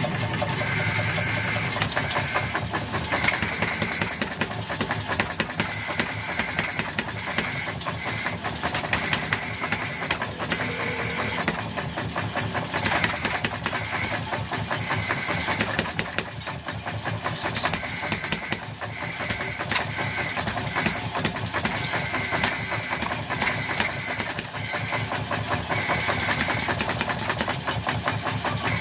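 A 50 kg mechanical power hammer running, its ram striking hot axe-head steel on the anvil in rapid, steady blows.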